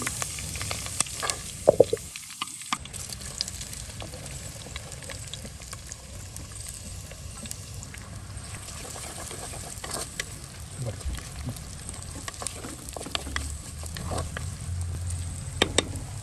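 Curry leaves, green chillies and then chopped onions sizzling in hot oil in a clay pot, with a steady hiss and scattered crackles, clicks and scrapes from a wooden spatula stirring.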